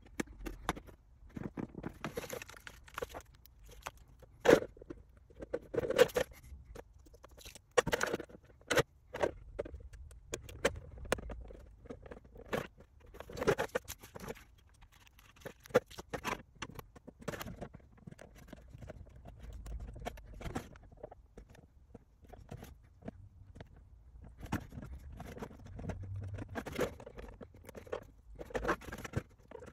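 Hands handling a clear Lexan RC car body shell and decal sheet while sticking on decals: scattered irregular taps, clicks and rustles, the sharpest knocks about four and six seconds in.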